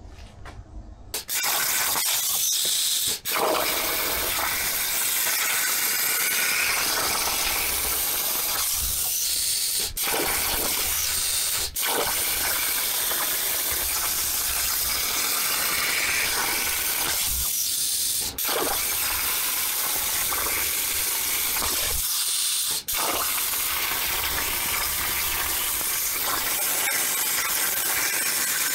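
CNC plasma cutter torch cutting quarter-inch plate: a steady hiss that starts about a second in, broken by brief drops about five times.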